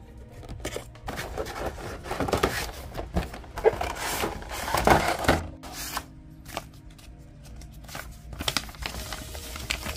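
Packaging being handled: a cardboard figure box opened and a clear plastic blister tray slid out, scraping and crackling, loudest in the first half. It eases off, then a paper instruction sheet rustles and crackles near the end.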